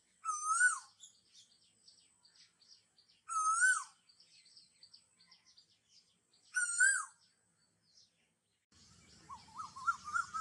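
Bird calls: a whistled rise-and-fall call repeated three times about three seconds apart, with faint chirps between. Near the end a quick run of rising chirps comes in over a low hiss.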